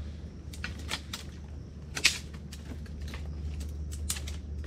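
Hands digging into wet mud at a mud crab's burrow: a dozen or so irregular sharp clicks and crackles, the loudest about two seconds in, over a steady low hum.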